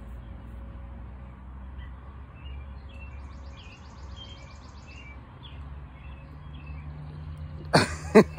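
Small birds chirping in the background, with a brief fast buzzing trill in the middle. Near the end, three quick, loud vocal bursts, each falling in pitch.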